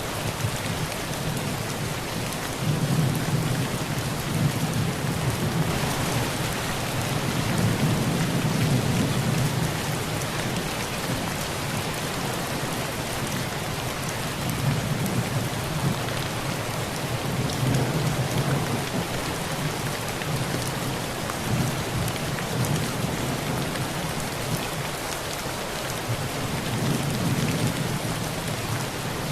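Heavy rain drumming steadily on a tin roof, with rolling thunder rumbling low underneath that swells and fades several times.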